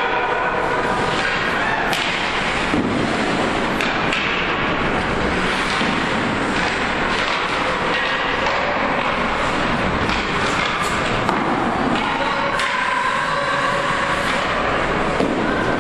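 Ice hockey game in an arena: a steady din of skating and rink noise with sharp clacks of sticks and puck striking again and again, and a few raised voices about three quarters of the way through.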